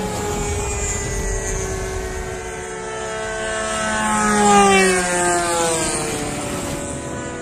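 Propeller-driven radio-controlled warbird model planes flying, several engine notes droning together. About four seconds in one plane passes close overhead: it grows louder, then its pitch drops as it goes by.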